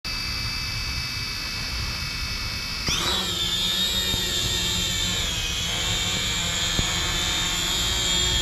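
Holy Stone HS110G quadcopter's motors and propellers whining: a steady whine of several tones at spin-up, which jumps sharply in pitch about three seconds in as the drone throttles up and lifts off. The whine then holds steady at the higher pitch while it hovers.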